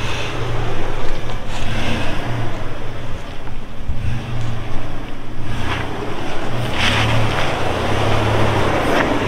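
Toyota 4Runner's engine running at low revs, a steady low rumble, as the SUV crawls slowly over boulders. Wind rushes over the microphone, with a few brief gusts of hiss.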